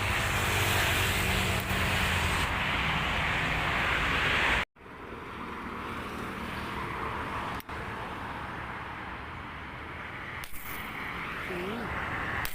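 Steady rushing outdoor noise, cut off abruptly a little under five seconds in and resuming quieter after the break.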